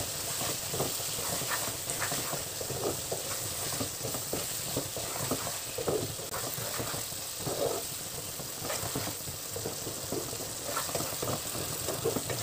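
A spatula stirring chicken and chopped spinach in a non-stick kadai, making irregular scrapes and soft clacks against the pan while the curry sizzles steadily.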